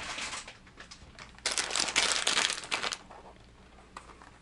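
Plastic lure packaging crinkling and crackling as it is picked up and handled, loudest for about a second and a half in the middle, with a few light clicks and rustles around it.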